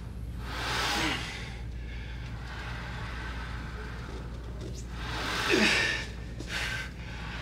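A man breathing hard under the strain of heavy leg press reps: two forceful exhalations with a short grunt in each, about a second in and again between five and six seconds in, over a steady low hum.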